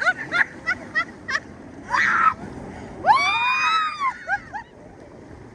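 Raft riders shrieking and whooping on a water slide: a run of short high yelps, a brief noisy burst about two seconds in, then one long high scream rising and falling about three seconds in, over a steady rush of water.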